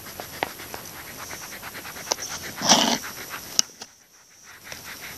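Rubber eraser scrubbing back and forth on lined notebook paper in quick, rhythmic strokes, rubbing out a pencil line. A short, louder rush of noise comes just before three seconds in, and the strokes stop briefly near the four-second mark.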